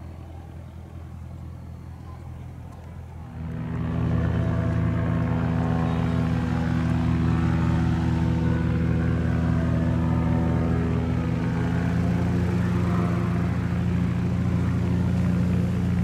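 Piper PA-46 single-engine propeller aircraft on the runway, its engine and propeller running at low power, then throttled up a little over three seconds in to a loud, steady drone at takeoff power as it begins its takeoff roll.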